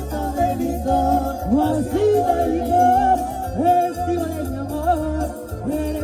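Live cumbia band playing: a gliding melody line over a steady, pulsing bass beat.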